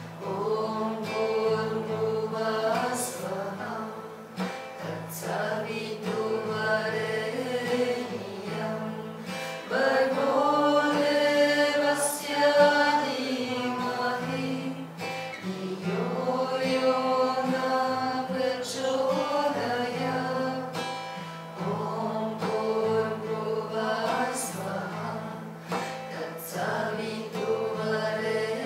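Devotional mantra sung to acoustic guitar strumming: a voice holding long, sliding notes over steady chords.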